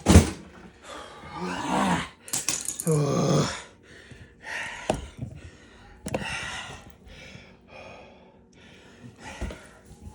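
A sharp knock right at the start, then a man's heavy, strained breathing and groaning in bursts, with a few more knocks and handling noises as an eggnog carton is worked open with pliers.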